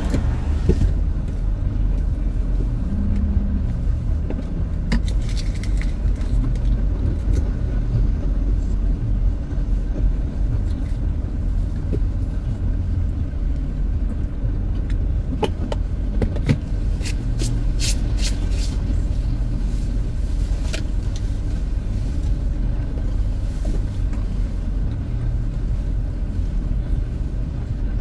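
Low, steady rumble of a car creeping along in slow traffic, heard from inside the cabin, with a scattering of light clicks in the second half.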